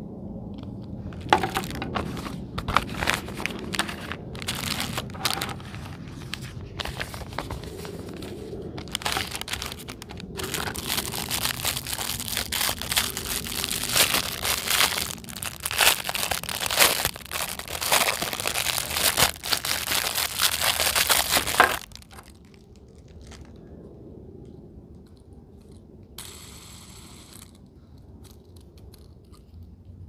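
Packaging being crinkled and torn open by hand, a dense crackling that builds through the first two-thirds and stops suddenly about 22 seconds in. A brief hiss follows near the end.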